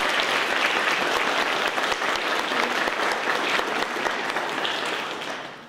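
Audience applauding: many hands clapping at once, starting abruptly and fading out near the end.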